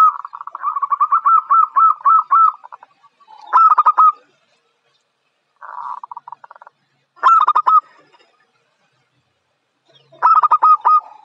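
Zebra dove (perkutut) singing its staccato cooing song: bursts of quick, rolling coo notes every two to three seconds. The first burst is a long run of about a dozen notes, and the one just past the middle is softer.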